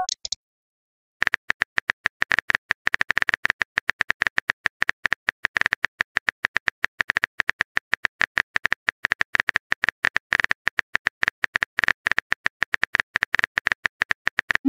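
Smartphone on-screen keyboard tap sounds: a fast, uneven run of clicks as a message is typed out, starting about a second in after the end of a short chime.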